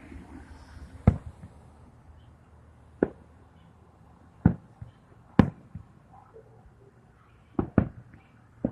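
Fireworks shells bursting, about seven sharp bangs at uneven intervals, with two in quick succession near the end.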